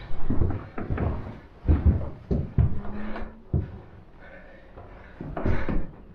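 Irregular thuds and knocks on wood: footsteps on the wooden floor of an observation tower's lookout room, clustered in the first few seconds and again near the end.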